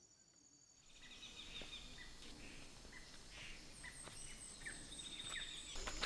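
Faint tropical forest ambience that fades in about a second in: many birds calling with short chirps and whistles, with a quick run of high chirps later on.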